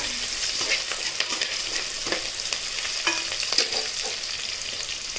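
Chopped onions and whole spices sizzling in hot oil in an aluminium pressure cooker, with a spoon scraping and clicking against the pot at irregular moments as they are stirred.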